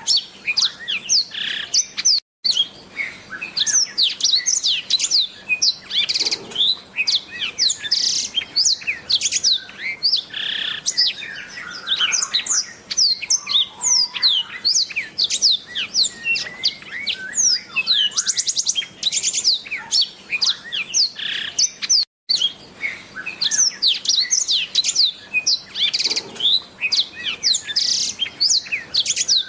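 Black-throated canary (yellow-rumped seedeater) singing a long, fast, continuous warble of high chirps, sweeping notes and trills. It breaks off twice for an instant, about 2 seconds in and again about 22 seconds in.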